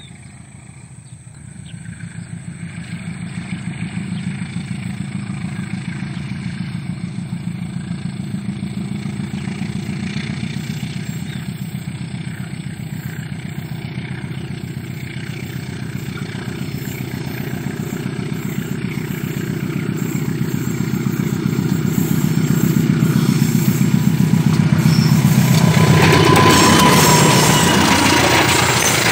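Diesel train locomotive approaching, its engine running with a fast low throb that grows steadily louder, then drawing level near the end with a brief high tone and a drop in pitch as it passes.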